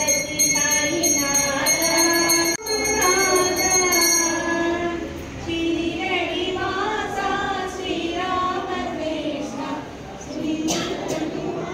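A group of devotees singing a devotional bhajan together, with a puja hand bell rung rapidly during the arati until about four and a half seconds in; after that the singing goes on alone.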